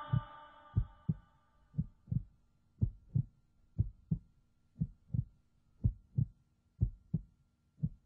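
Heartbeat sound: paired low thumps, lub-dub, about once a second in an even rhythm, over a faint steady hum.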